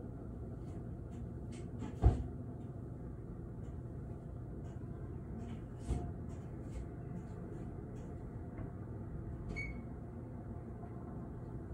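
Steady low background rumble, with a sharp knock about two seconds in and a softer knock about four seconds later.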